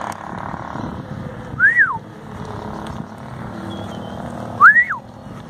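A person whistling twice, about three seconds apart, each a short whistle that rises and then falls in pitch, calling a stray dog, over a steady low rumble of background noise.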